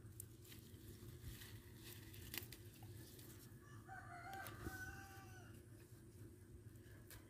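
A rooster crows once, faintly, about four seconds in. A few soft snaps and rustles come from water spinach stems being picked by hand.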